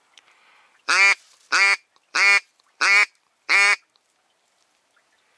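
Five loud, evenly spaced mallard-style quacks in a row, a little over half a second apart.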